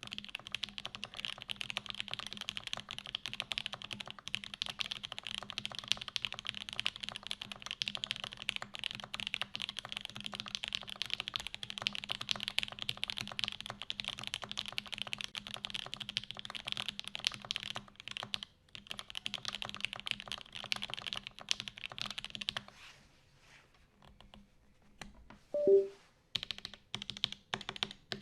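Custom mechanical keyboard in a polycarbonate case with a UHMWPE plate, lubed OP Black switches and GMK keycaps, typed on quickly in a steady stream of keystrokes. The typing stops briefly about 18 s in, thins to a few scattered keystrokes after about 22 s, one much louder knock with a short ringing tone comes near 26 s, and fast typing resumes.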